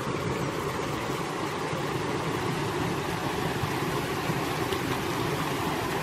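Steady rush of a rocky stream running over small cascades.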